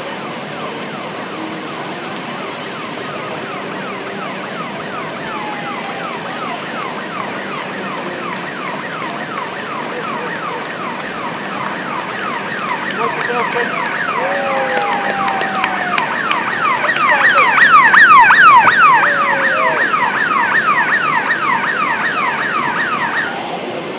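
Electronic siren on a soapbox cart, a rapid repeating falling wail, about three or four sweeps a second. It grows louder as the cart approaches, is loudest about three-quarters of the way through, and cuts off abruptly just before the end.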